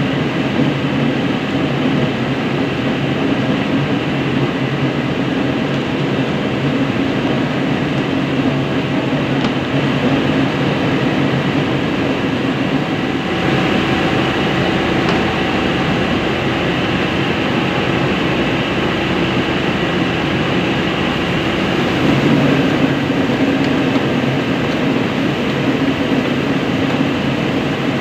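Small rice milling machine running steadily: a loud, even mechanical drone with a low hum.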